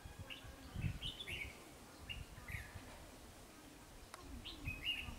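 Red-whiskered bulbuls singing short, bubbly chirping phrases several times, over low rumbling thumps that are loudest about a second in.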